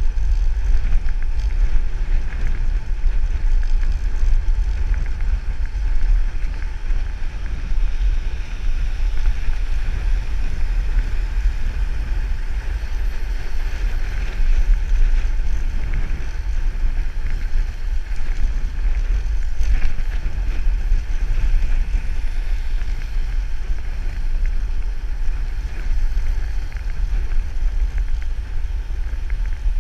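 Wind buffeting the microphone of a camera worn by a cyclist riding a road bike, a steady low rumble with a fainter hiss above it.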